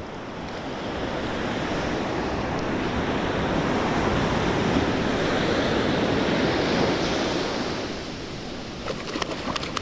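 Ocean surf breaking and washing up the beach, swelling to its loudest midway and easing off near the end. A few short clicks come in near the end.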